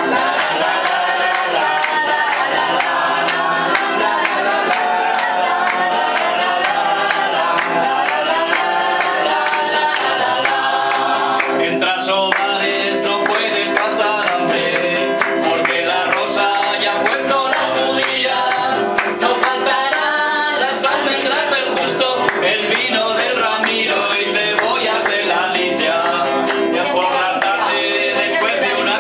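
Live singing of a folk corrido, with instrumental accompaniment.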